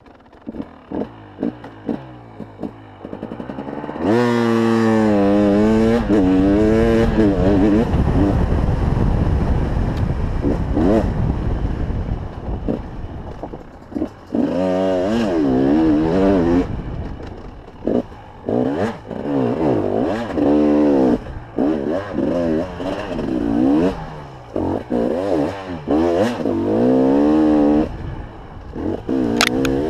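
A 300 TPI fuel-injected two-stroke enduro motorcycle, first blipped in short throttle stabs for a few seconds. From about four seconds in it revs hard, its pitch rising and falling again and again as it is ridden through the gears.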